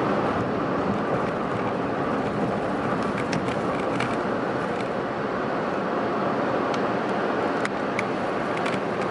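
Steady road and engine noise of a car driving at speed, heard from inside the cabin, with a few light clicks.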